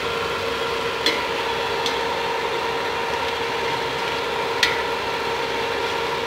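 Metal spoon stirring mutton bubbling in a steel pot, with a steady hiss of cooking and a steady hum underneath. The spoon clinks sharply against the pot three times: about a second in, just before two seconds, and about four and a half seconds in.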